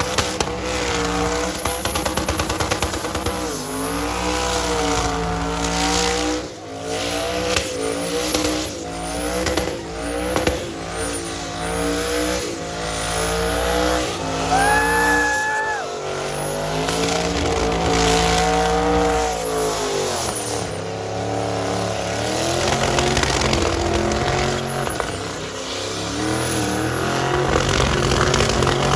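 Twin-turbo LS V8 in a Chevrolet Silverado revving up and down over and over during a burnout, with the tires squealing.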